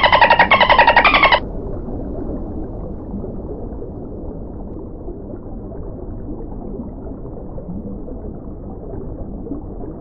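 A dolphin's pulsed squawking call, a fast train of clicks with two falling sweeps, cuts off about a second and a half in. A steady low underwater rumble follows.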